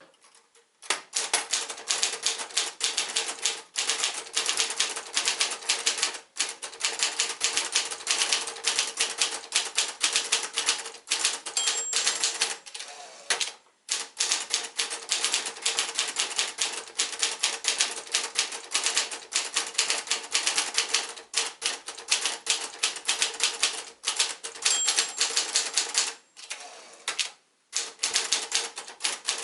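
Sears Achiever 1 (Brother JP-7) manual portable typewriter being typed on: a rapid, steady run of key strikes, with two short pauses, one about halfway through and one near the end.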